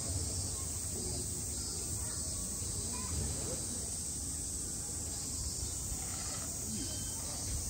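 Steady high-pitched drone of cicadas, with faint distant voices underneath.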